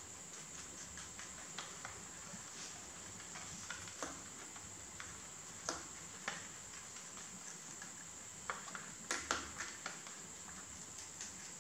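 Two rabbits chewing and tearing sweet basil leaves: rapid crisp crunching clicks, with a few louder snaps and leaf rustles around the middle and again near the end. A steady high-pitched hiss runs underneath.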